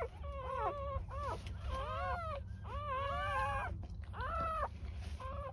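Newborn Great Pyrenees puppies squealing and whimpering while nursing: a string of short, high cries that rise and fall in pitch, some overlapping, with a longer cry about three seconds in.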